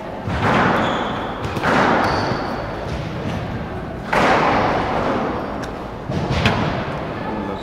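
Squash rally: the ball struck by racquets and smacking off the court walls about five times, each hit echoing in the hall, with a few short squeaks of court shoes on the wooden floor.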